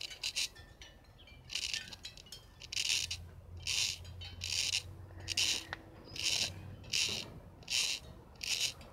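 Nail file rasping across a baseball's leather cover in slow back-and-forth strokes, about eleven of them, a little more than one a second.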